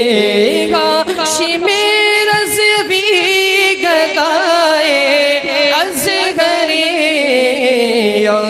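Unaccompanied devotional singing of an Urdu manqabat: long, ornamented held notes with wavering, gliding pitch and no clear words.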